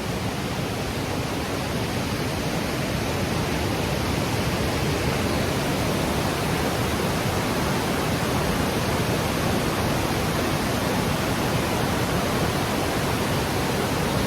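Waterfall rushing close by: a steady, loud roar of falling water with no breaks.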